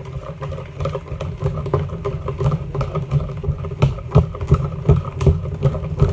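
Wire whisk beating banana cake batter in a plastic tub with quick, even strokes, about three a second, the wires tapping and scraping against the tub. The gritty scrape is the sign of sugar not yet dissolved at the bottom of the batter.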